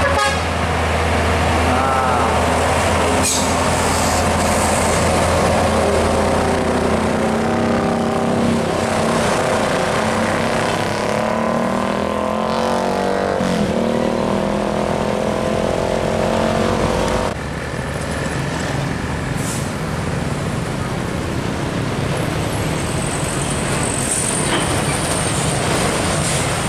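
Hino 500 diesel cargo truck's engine labouring up a bend and pulling away, its pitch rising and falling through the gears; the sound drops away suddenly about 17 seconds in. Steady traffic noise follows, with a high hiss near the end as another Hino 500 truck rounds the bend.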